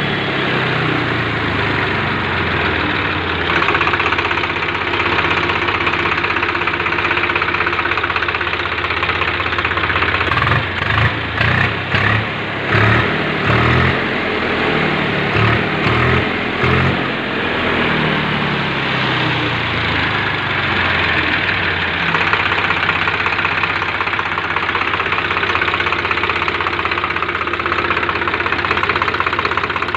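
Swaraj 735 tractor's three-cylinder diesel engine idling after a rebuild of a seized piston, being run to check its sound; about ten seconds in, the throttle is blipped several times in quick succession, then the revs fall back to a steady idle.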